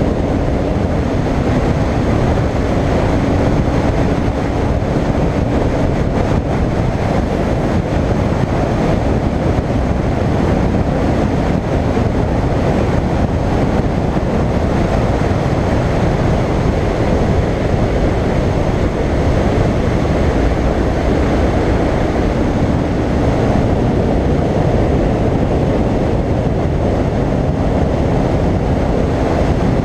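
Steady wind rush over the microphone of a moving motorcycle, with the Royal Enfield Continental GT 535's single-cylinder engine running at a steady cruise underneath.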